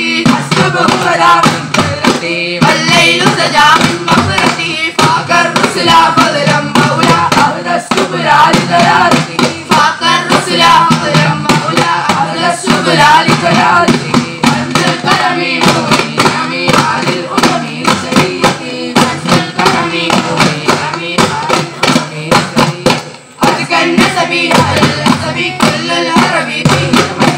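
Daf muttu ensemble: a group of boys singing a devotional song together while beating hand-held daf frame drums in a steady, fast rhythm, with a brief break in the sound late on.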